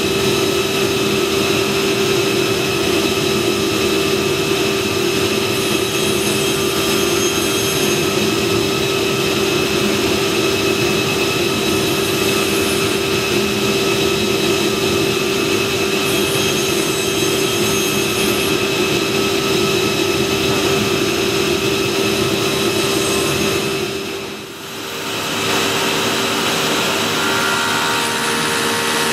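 Automated woodworking machinery running steadily: a continuous mechanical drone with a constant hum and whine, dipping briefly about 24 seconds in.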